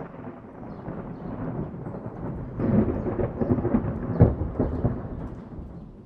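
A thunderclap rolling in: a rumble that swells into a loud run of crackling cracks in the middle, the sharpest about four seconds in, then rolls away and fades.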